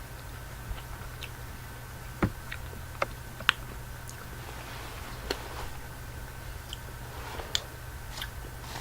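Close-up eating sounds from someone chewing candy eggs: sharp, separate crunches and mouth clicks, the three loudest just past two, three and three and a half seconds in, with softer crackling later. Underneath runs a steady low background hum.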